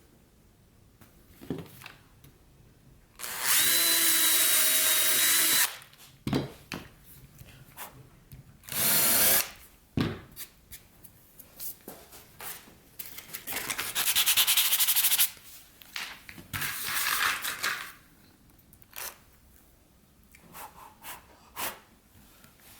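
Handheld power tool working plywood, run in four loud bursts of one to two and a half seconds, with short knocks and handling noises between them.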